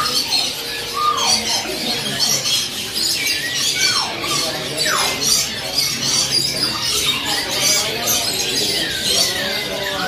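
Many caged songbirds chirping and calling over one another. Several clear whistles slide down in pitch, scattered through it.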